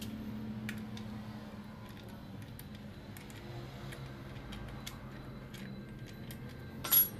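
Small screwdriver working a screw in the wooden stock of a pump air rifle, with faint scattered clicks and ticks of metal on metal over a steady low hum. A single sharp metallic click near the end.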